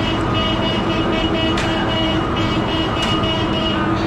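Truck engine running steadily, with a high whine that comes and goes and two sharp knocks about a second and a half apart.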